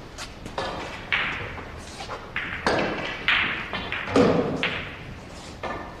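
Snooker balls clacking against each other and cue tips striking balls, about nine sharp, irregular knocks that ring and echo in a large hall.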